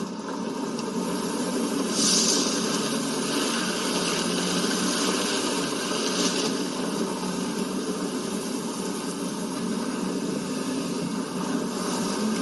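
A vehicle driving: a steady engine and road noise, with a brighter hiss that swells about two seconds in and eases off about four seconds later.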